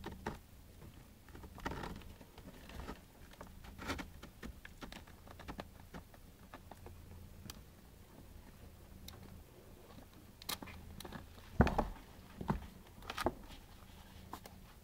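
Scattered light scratches and taps of kittens' paws and claws scrabbling on a cardboard box as they wrestle with a hand, with a few louder knocks about three-quarters of the way through.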